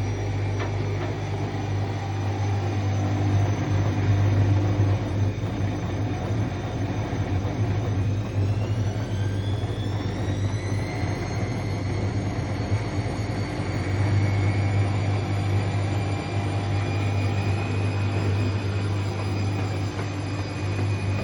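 Bosch WAE24162 washing machine spinning its drum: a steady motor hum with a whine that rises in pitch about eight seconds in as the drum speeds up, then holds level.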